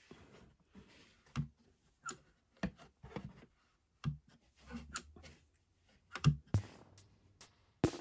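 Scattered clicks and light knocks as the electric unicycle's metal folding pedal is handled and pressed by hand.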